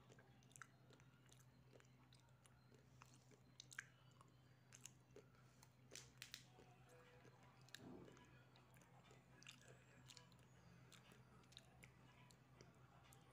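Faint chewing: a person eating, with soft mouth clicks and smacks scattered irregularly, over a low steady hum.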